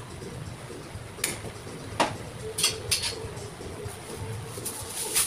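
Scattered sharp knocks and clicks from a vendor working at a roast-chicken stall's steel counter, about five in a few seconds, over a steady low background hum.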